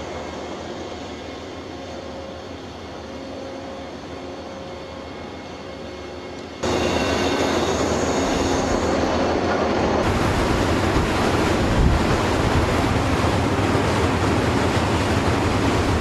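Steady machinery noise from a drilling ship's deck and derrick: a hum with faint steady tones. About six and a half seconds in it cuts abruptly to a much louder rushing machinery noise, which changes again about ten seconds in, when a low hum comes in.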